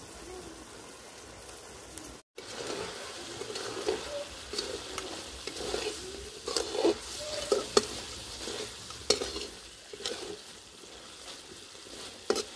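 Chicken curry sizzling in a metal kadai. From about two seconds in, a metal spatula stirs and scrapes around the pan, with sharp clinks against its side and short squeaks.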